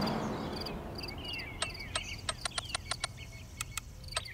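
Crickets chirping in a steady pulsing rhythm, with birds twittering over them. A run of sharp clicks sounds in the middle.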